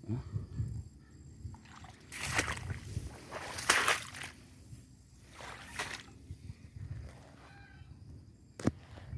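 Splashing and sloshing through shallow water, with three louder splashes a second and a half to two seconds apart, and a sharp click near the end.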